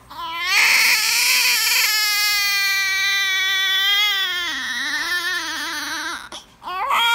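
Newborn baby crying: one long wail lasting about six seconds, its pitch dipping near the end, followed by a short second cry just before the end.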